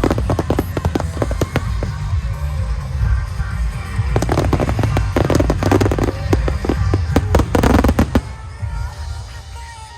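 Aerial fireworks bursting in dense rapid volleys with crackling and low booming. The bursts thin out and die away about eight and a half seconds in.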